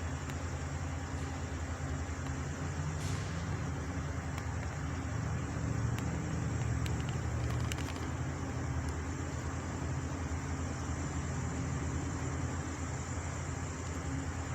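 A steady low engine hum, like a truck running, swelling slightly about halfway through, with a few faint clicks.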